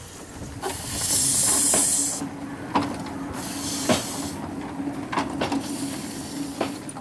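Ridable live-steam locomotive hissing steam in two loud bursts of about a second each, in the first half, over a steady low hum. Several sharp knocks come at intervals.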